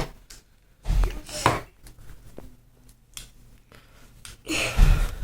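Plastic Play-Doh container knocked and handled on a tabletop while the dough is worked out of it. There are three bursts of knocking and rustling, the second and third with a dull thump, and light clicks in between.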